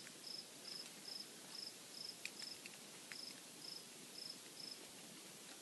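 A cricket chirping steadily, about two short high chirps a second, over a faint hiss, with a few faint clicks about two to three seconds in.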